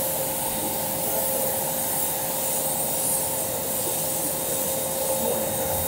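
Steady whir of a small electric blower motor, a constant rushing noise with a steady whine.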